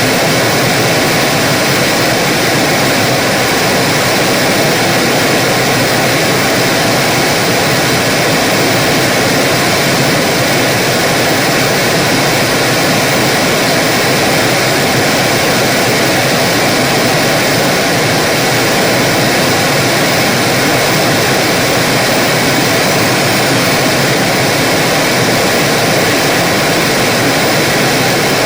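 Television static: a steady, even hiss of white noise, loud and unchanging.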